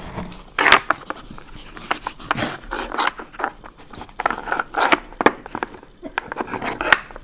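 A Samoyed working a plastic Nina Ottosson Hide N' Slide dog puzzle with its nose: irregular clicks and knocks of the plastic sliders and pegs, mixed with sniffing.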